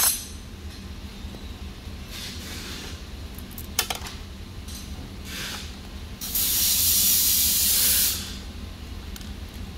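Hand-tool work on a chiropractic table's uplift motor mount: a sharp metallic click at the start and another near four seconds, soft swishes, and then a loud rubbing hiss of nearly two seconds, over a low steady hum.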